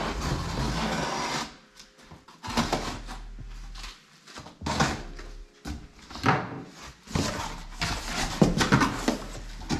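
Large cardboard shipping box being handled and opened, its flaps pulled back. A long rasp in the first second and a half, then shorter rustles, scrapes and knocks of cardboard that come thicker near the end.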